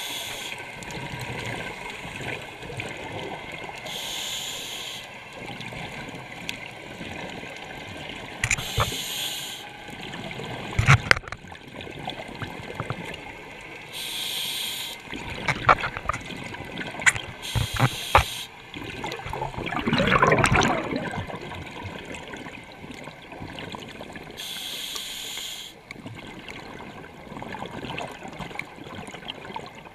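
Scuba regulator breathing heard underwater: a short hiss from the demand valve on each inhale, five times, between bubbling exhalations, the loudest just past the middle. A few sharp knocks fall around the middle.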